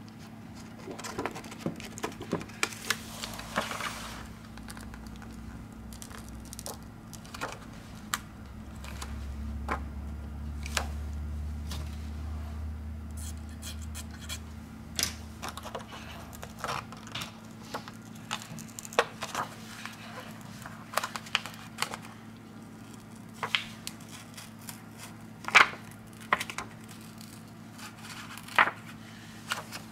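Clear plastic film crinkling and crackling as it is handled and peeled from a smartphone's back and screen, with scattered sharp clicks and taps, the loudest about 25 seconds in. A low hum runs from about nine to fifteen seconds in.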